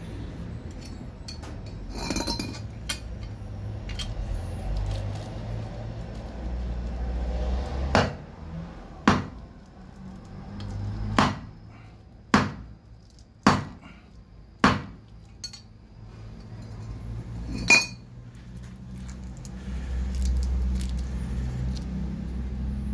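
Seven sharp metallic knocks, about a second apart, from a metal pipe and a lithium iron phosphate battery cell in its aluminum casing being pounded against concrete to drive the cell out of the casing. The cell stays stuck in its casing.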